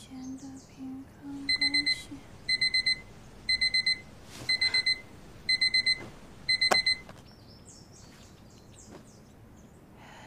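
Digital alarm clock beeping in quick bursts of four high beeps, about one burst a second, starting about a second and a half in. It is cut off by hand about five seconds later, with a click as it is switched off.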